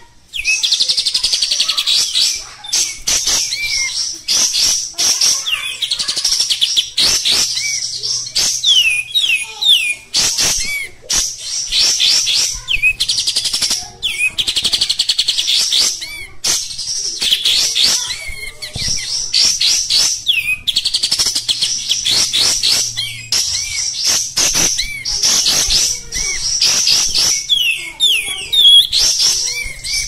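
Olive-winged bulbul (kapas tembak, the coarse-voiced 'kasar' type) singing without a break, in fast chattering phrases of rapid high notes separated by short pauses.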